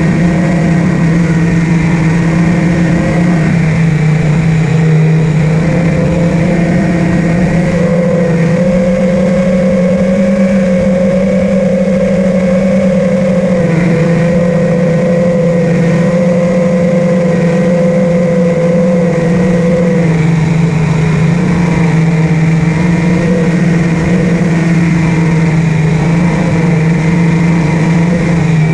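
A 5-inch FPV quadcopter's four brushless motors (Amax 2306, 2300 kV) and propellers whining steadily at cruising throttle during a long-range flight. The pitch shifts slightly now and then with throttle changes, around 4 s, 8 s and 20 s in.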